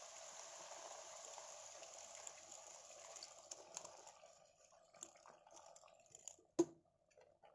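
Water being poured into a hot pan of cooking chicken and greens: a steady splashing hiss that tapers off about three to four seconds in, leaving scattered drips and small clicks.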